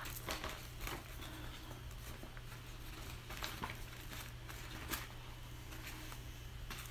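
Faint rustling and a few light clicks of clear plastic sheeting being handled, over a steady low hum.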